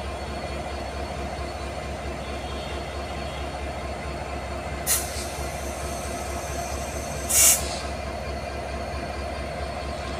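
A passenger train and its diesel locomotive rolling past close by: a steady rumble of wheels on rail with a low engine throb. There are two short bursts of hiss, one about five seconds in and a louder one about two seconds later, as the power car and locomotive go by.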